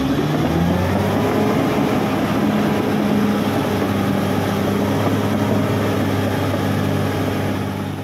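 Caterpillar D6R XL crawler bulldozer's diesel engine running steadily as the dozer pushes its blade through soil. The engine fades out near the end.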